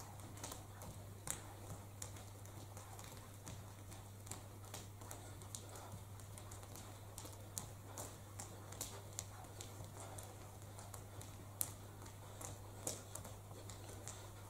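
Irregular light taps and clicks, a few a second, from footsteps on a stage floor and the metal frames of chairs held overhead knocking, with a few sharper knocks. A steady low electrical hum runs underneath.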